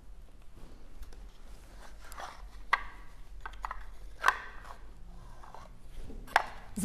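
Soft cloth rustling as cloth sleeve covers are pulled up the arms, with a few short light knocks and taps as hands and forearms settle onto a wooden school desk, the clearest two about a second and a half apart in the middle.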